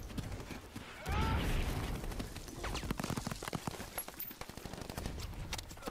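Movie battle-scene sound effects: scattered gunshots throughout and a low explosion rumble about a second in, played back quietly.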